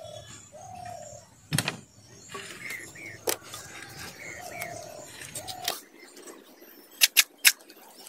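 Birds calling, a short note repeated over and over with some higher chirps, while bamboo poles knock sharply against each other as they are handled and laid out. The loudest are three quick knocks close together near the end.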